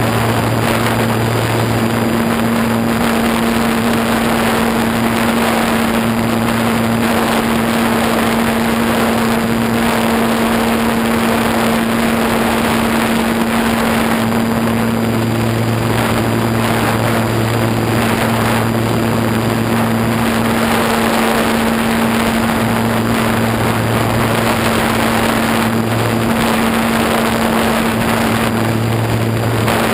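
Radio-controlled model airplane's motor and propeller droning steadily, heard through the onboard camera, with wind rushing over the microphone. A lower hum under the drone fades in and out several times.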